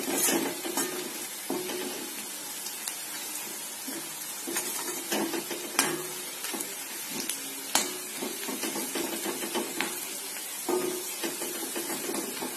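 Sliced onions sizzling in a little oil in a metal kadhai, stirred with a metal spatula that scrapes and clinks against the pan. The onions are starting to brown.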